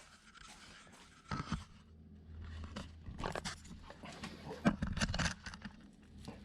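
Clattering of tools and parts being handled and moved about, a run of irregular clicks and knocks, with a low steady hum joining in about two seconds in.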